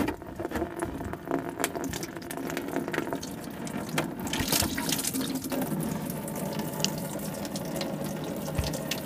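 Engine coolant pouring in a steady stream from an opened radiator drain petcock into a plastic drain pan, with scattered small clicks.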